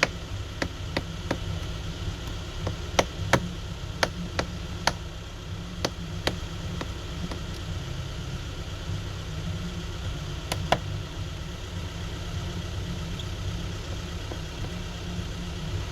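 Light, sharp clicks of a precision screwdriver and small screws on a phone's middle frame, scattered irregularly, with most of them in the first ten seconds or so. A steady low hum runs underneath.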